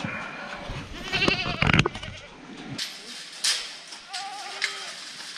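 Goat bleating: a quavering bleat about a second in and a fainter one near the end, with a single sharp knock between them.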